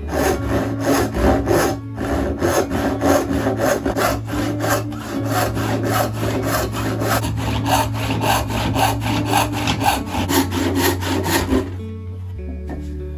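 A handsaw cutting through oak in steady back-and-forth strokes, about three a second. There is a brief pause about two seconds in, and the sawing stops near the end. Background music plays underneath.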